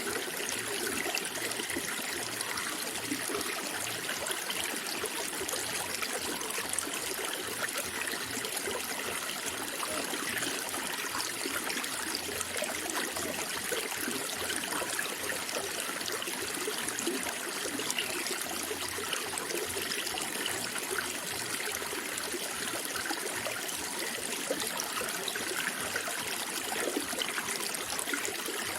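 Running water flowing steadily, a constant trickling and splashing rush without pauses.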